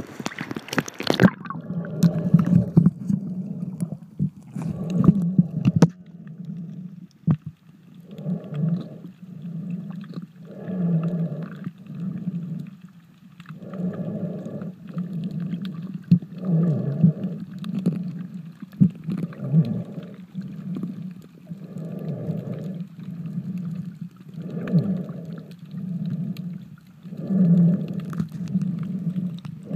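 Muffled underwater sound of a snorkeler breathing through the snorkel, in rhythmic breaths every couple of seconds over a steady low hum.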